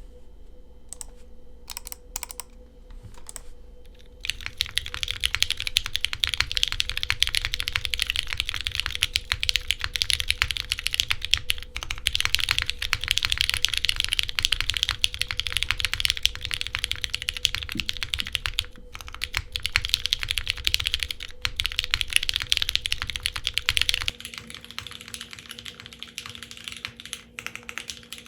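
Typing on a custom 60% mechanical keyboard with diamond-polished vintage Cherry MX Brown tactile switches, an aluminium plate, o-ring gasket mounting and GMK keycaps. A few single keypresses at first, then fast continuous typing from about four seconds in; near the end the typing turns quieter and thinner as it is picked up by a phone's microphone.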